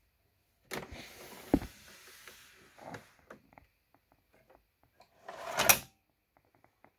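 Handling noise: rubbing and scraping with a single sharp knock about a second and a half in, scattered small clicks, and a short louder scrape near the end.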